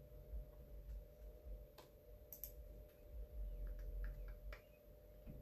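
A few faint, scattered clicks at a computer keyboard and mouse, over a steady low hum.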